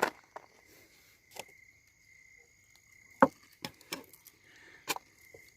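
Knife chopping on a cutting board: about eight irregular knocks, the loudest a little past halfway. Behind it is a steady high insect drone.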